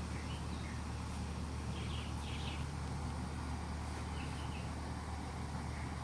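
Steady low background hum with a few faint, short high-pitched chirps in the first half.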